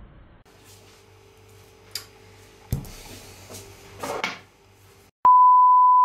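A few faint knocks and a short clatter from hands working over a glass mixing bowl, then, about five seconds in, a loud steady pure beep starts abruptly: the test tone that goes with a colour-bars screen.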